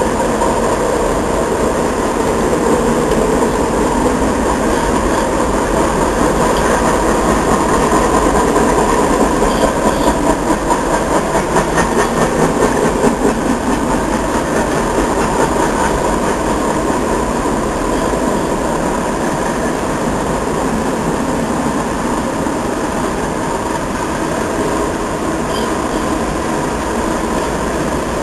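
Freight cars of a long train rolling past at speed: a steady rumble of steel wheels on rail, with a rhythmic clickety-clack that grows clearer in the middle.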